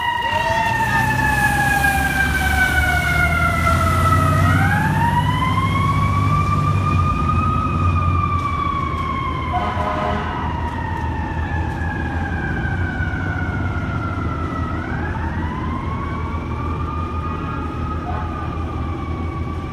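FDNY heavy rescue truck's siren wailing in long, slow sweeps as the truck drives off. The pitch falls for about four seconds, climbs back, falls again for about seven seconds, and climbs once more near the end. A heavy engine rumble is loud through the first half as the truck pulls past, then fades.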